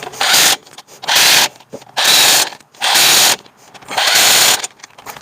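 Power tool run in five short bursts about a second apart, while the front suspension is being bolted back together.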